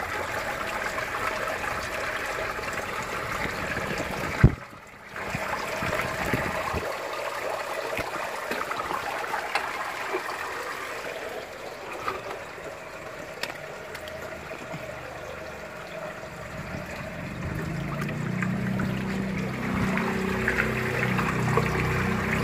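Water trickling and splashing in a backyard aquaponics tank, with one sharp knock about four and a half seconds in and a low hum joining in during the last few seconds.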